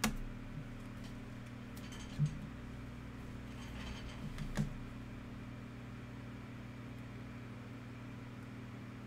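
Steady low electrical or fan hum, with a sharp click at the start and a few fainter clicks and knocks about two and four and a half seconds in.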